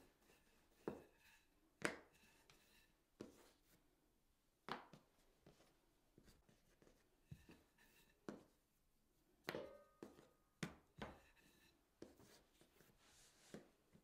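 Wooden rolling pin knocking and rolling on a wooden board as dough rounds are rolled out and stacked by hand: about ten soft, short knocks at uneven intervals, bunched most closely near the middle.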